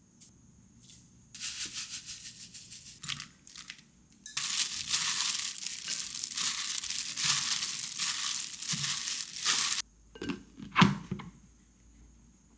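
Crinkling and tearing: a short crackly stretch, then a louder continuous one of about five seconds that stops suddenly, followed by a few knocks.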